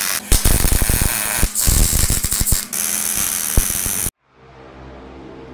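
Electric welding arc on steel plate: a loud steady hiss broken by crackling and popping, which stops abruptly about four seconds in.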